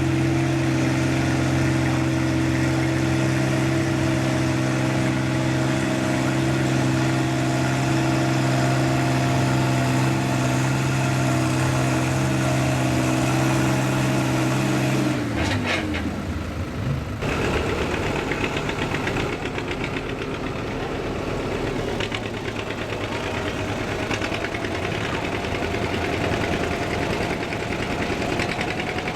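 Farm tractor engine running loud and steady at high revs. About halfway through its pitch drops away, and a rougher, clattering engine running takes over.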